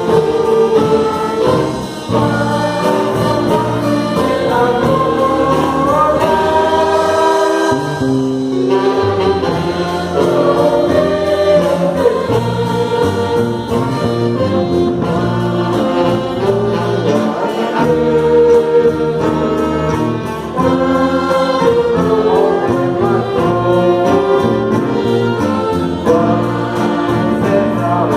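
An orchestra with brass plays a slow piece of sacred music in sustained chords, with notes held and changing every second or two.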